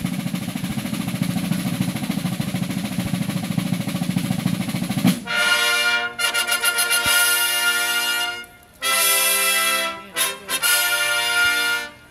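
A sustained drum roll on field drums, then about five seconds in a herald trumpet ensemble comes in with a loud brass fanfare, played in short phrases with brief breaks between them.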